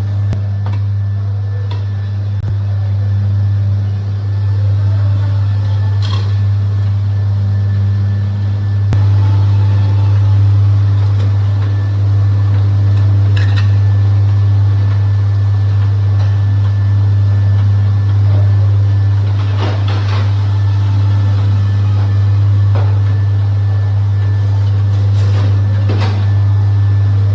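Commercial utensil dishwasher running with a steady low motor hum, with a few short clinks scattered through.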